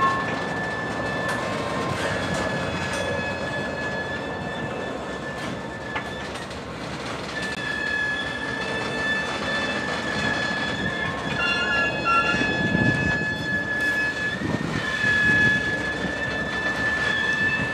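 Railroad tank cars rolling slowly over a grade crossing, with a steady high-pitched wheel-flange squeal that fades out for a few seconds and then returns. Under it runs a rumble of wheels over the rail joints, with heavier thumps late on.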